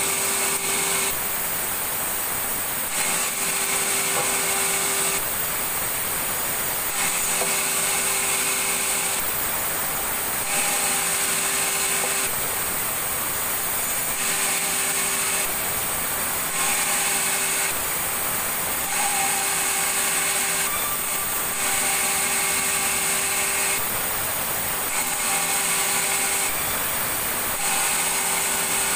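Sawmill saw cutting timber: continuous machine noise with steady tones that shifts abruptly every one to two seconds.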